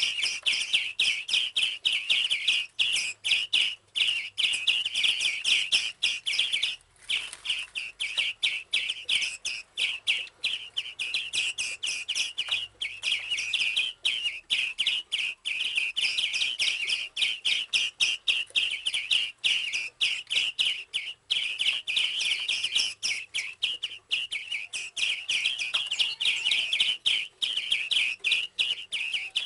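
Caged small birds chirping rapidly and continuously, a dense stream of high, quick chirps with hardly a pause.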